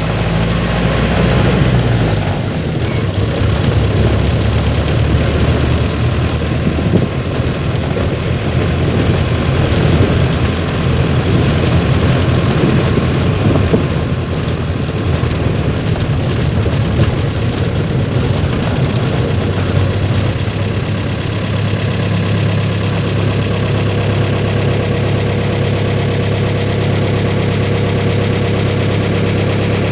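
Mercedes-Benz LO 814 bus's diesel engine running as the bus moves off slowly over a cobblestone street, heard from the driver's seat. Its note changes about two seconds in and becomes steadier in the last third.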